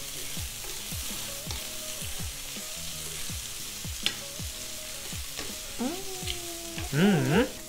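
Mushrooms frying in oil in a pan, a steady sizzle; they have browned golden.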